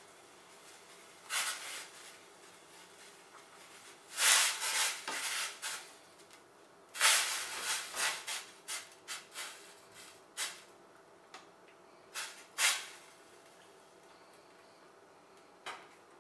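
Metal spoon scraping and clinking against a stainless-steel pot as pieces of soya chaap are stirred in water, in irregular bursts, the busiest run of clinks about seven to ten seconds in. A faint steady hiss from the gas burner underneath.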